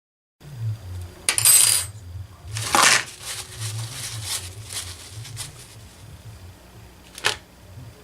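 Small metal engine parts and tools clinking on a workbench. A jingling rattle comes about a second and a half in, a louder clank near three seconds, then lighter taps and one sharp click near the end.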